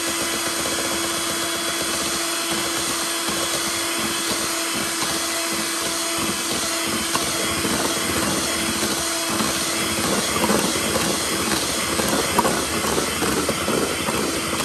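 Electric hand mixer running steadily, its twin wire beaters whipping eggs and sugar in a stainless steel bowl as the batter thickens and turns fluffy.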